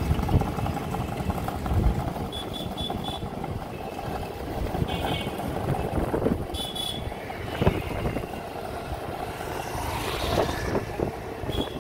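Continuous low rumble of a vehicle moving along an asphalt road, with scattered knocks and a few short, high, rapidly pulsing rings.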